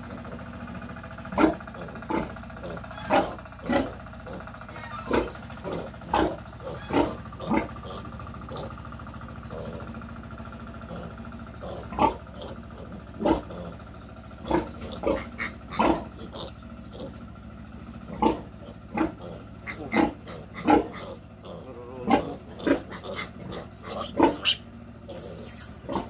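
Young piglet squealing in short, loud cries again and again while it is held upside down by its hind legs and castrated, with a quieter lull of a few seconds near the middle.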